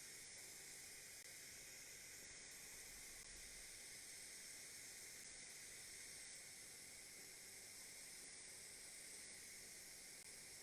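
Faint, steady hiss of a TIG welding arc running a root pass on duplex stainless steel pipe, with filler wire fed into the puddle.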